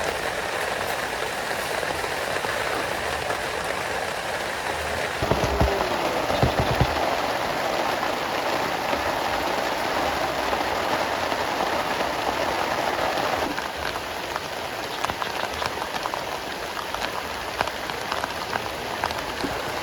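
Steady heavy rain falling and pattering on surfaces, with a few low thumps about five to seven seconds in and the rain easing slightly a little past halfway.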